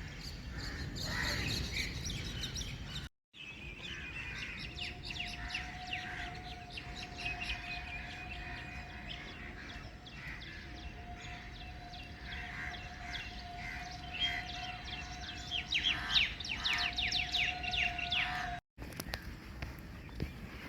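Small birds chirping and twittering over a faint steady tone, with the sound cutting out completely for a moment twice.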